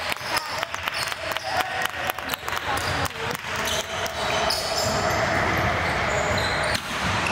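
Basketball bouncing on a gym floor, a quick string of sharp knocks. A steadier wash of crowd noise fills the second half.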